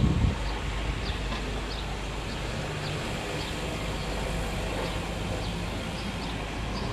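Outdoor ambience: a steady low rumble, with short high falling chirps of small birds repeating about once a second.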